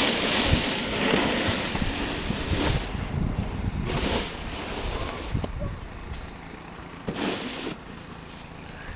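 Wind gusting on the camcorder microphone, a rushing, rumbling buffet that is heaviest for the first three seconds and flares again briefly about four and seven seconds in.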